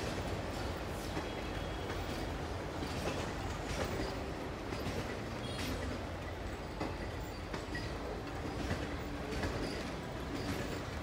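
Passenger coaches of a departing train rolling past, with a steady low rumble and irregular wheel clicks over the rail joints. A faint steady tone comes in about seven seconds in.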